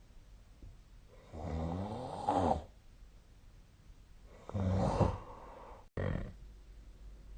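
A sleeping person snoring, roughly one snore every three seconds: two full snores of about a second each, then a short one just after a brief cut in the sound about six seconds in.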